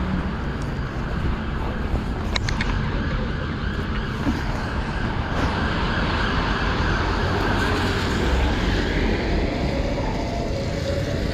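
Road traffic on a rain-wet street: a steady rush of cars passing. A sharp click comes about two and a half seconds in.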